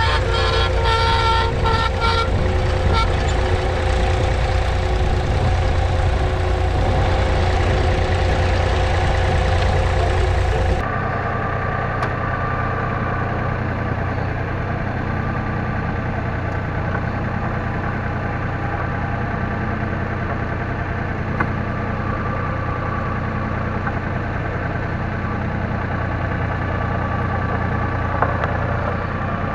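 David Brown 780's three-cylinder diesel engine running steadily under load while pulling a two-furrow plough. About eleven seconds in, the sound abruptly drops in level and loses much of its deep low end, but the engine keeps running at the same steady pace.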